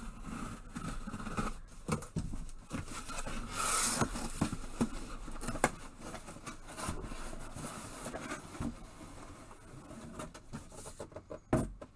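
Cardboard box and its packing being handled and opened: rustling and scraping with scattered light knocks, and one longer rushing scrape about four seconds in.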